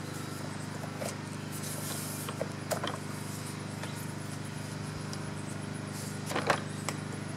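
Bissell Power Force Helix upright vacuum cleaner's motor running with a steady hum, while its plastic hose and wand are handled, giving a few sharp knocks about a second in, near the three-second mark and again near the end.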